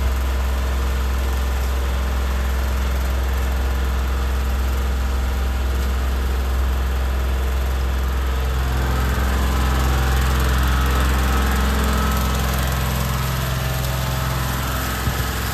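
An engine running steadily at idle with a deep, even hum, the kind that drives drain-clearing equipment. About halfway through a second, higher hum joins and runs until just before the end.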